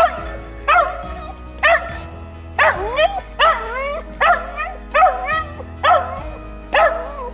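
Search-and-rescue dog barking repeatedly, about one bark a second, each bark rising and falling in pitch. This is its trained alert that it has found a person hidden under the rubble. Background music plays underneath.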